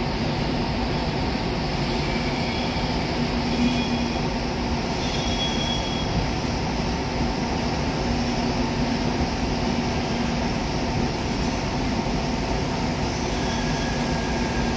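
A train running steadily at the station, a continuous rumble with a steady low hum. A few faint, short high tones come through during the first half.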